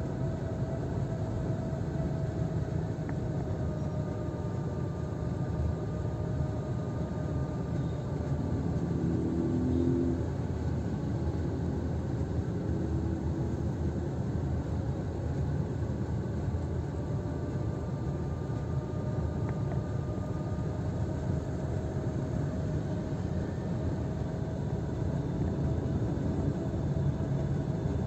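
Car driving on a wet road, heard from inside the cabin: a steady low rumble of engine and tyres with a faint steady whine. A low pitched sound swells briefly about ten seconds in.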